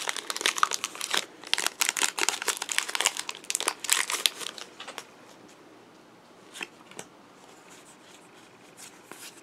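Foil wrapper of a Pokémon trading card booster pack being torn open and crinkled for about five seconds, then a few soft ticks as the cards are handled.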